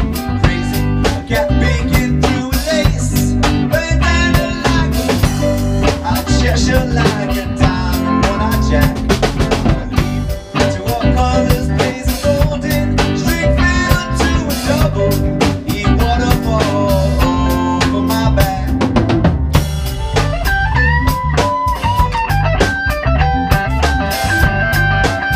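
Live rock band playing an instrumental passage with no vocals. A drum kit and bass keep a steady groove under melodic electric guitar lines that bend in pitch. Near the end a long note is held.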